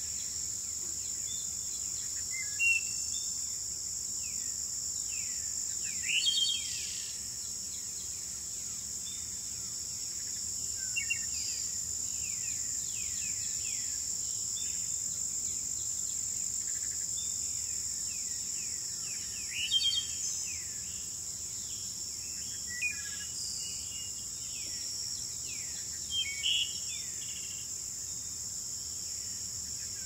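Spring nature ambience: a steady high insect trill with many birds chirping over it in quick downward-sweeping calls, a few of them louder and closer.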